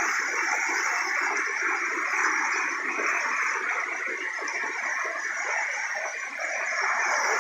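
Steady rushing noise of a waterfall and its water.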